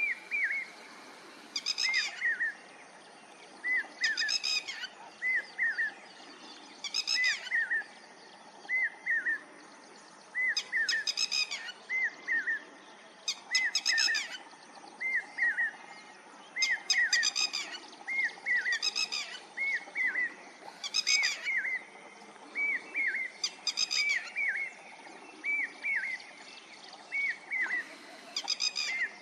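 Lapwing calling over and over: short, sharp hooked notes in quick twos and threes, alternating every two to three seconds with a harsher, rattling call.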